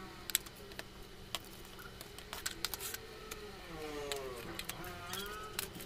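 Hard white plastic storage baskets clicking and knocking as they are handled, stacked and set down, in a string of sharp separate taps. A drawn-out wavering call sounds faintly in the background near the end.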